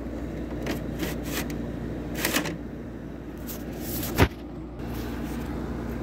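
Window air conditioner running with a steady hum, overlaid by a series of handling knocks and rubs from a hand and the camera against the unit's plastic grille. The loudest is a sharp thump about four seconds in.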